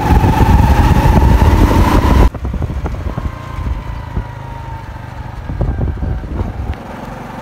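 Motorcycle engine running as the bike is ridden. There is loud rushing noise for about the first two seconds, then the sound suddenly drops to a quieter steady engine rumble.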